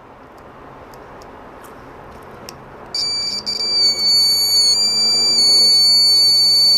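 Microwave oven buzzer, powered by a multimeter's continuity tester, starts beeping about three seconds in with a single high steady tone that stutters briefly as the contact is made and then holds: the buzzer works.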